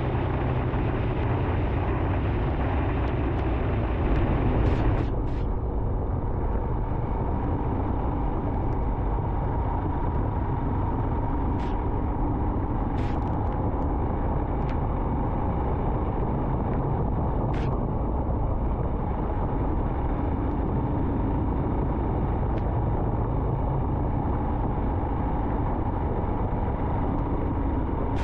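Royal Enfield Himalayan's single-cylinder engine running steadily at cruising speed, mixed with rushing wind and the hiss of tyres on a wet road. It gets louder briefly about four seconds in, and a few faint ticks come through.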